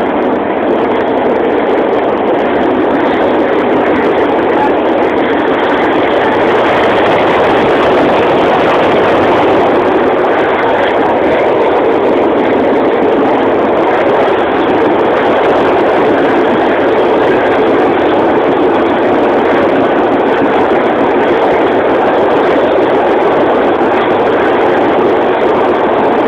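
Passenger train running at speed: a steady, loud rumble of wheels and carriage noise heard from inside a coach behind the locomotive.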